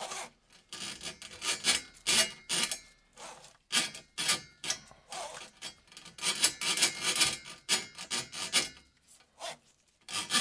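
Steel drain-auger cable rasping and scraping against the drain cleanout opening as it is pushed in by hand, in irregular strokes a few per second.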